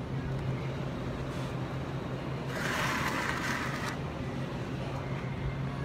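Steady low hum of a grocery store's refrigerated display cases and ventilation, with a brief hiss about two and a half seconds in that lasts a second and a half.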